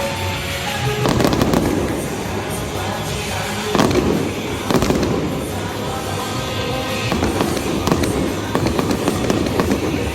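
Fireworks bursting and crackling over loud music: several heavy bangs early on, then a dense run of crackles from about two-thirds of the way through.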